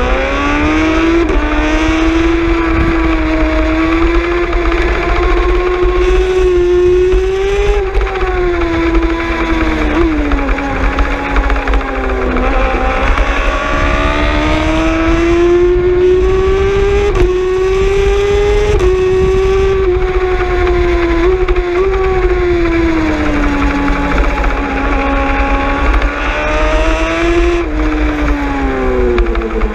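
Racing superbike engine heard from onboard at full racing speed, its pitch climbing with the revs and dropping twice for a few seconds as the rider slows for corners before pulling hard again. Wind rushes over the microphone.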